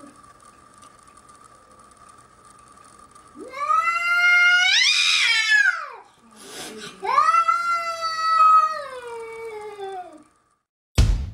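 A cat yowling: two long, drawn-out calls, each rising and then falling in pitch, over a faint steady high tone. A short loud knock near the end.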